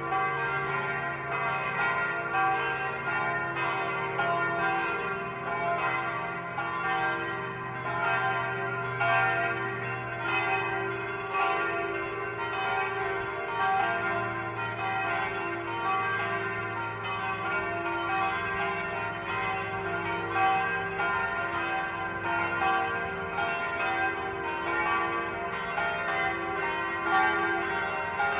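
Church bells ringing together in a continuous peal, the strikes following each other quickly and overlapping, their tones ringing on underneath.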